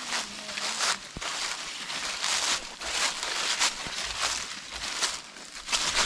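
Footsteps crunching through dry fallen leaves, each step a short crackle, about one and a half steps a second.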